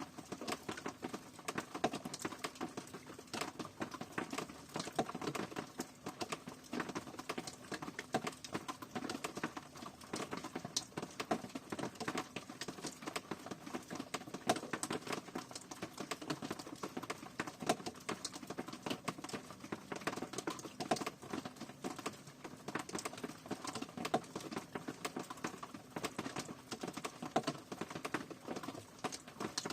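Steady rain: a dense patter of many separate drops striking a surface.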